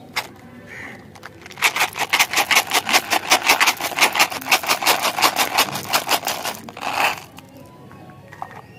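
Tic Tac mints clattering out of their plastic flip-top box into a palm: a click as the lid opens, then a rapid run of small clicks, about eight to ten a second, lasting several seconds.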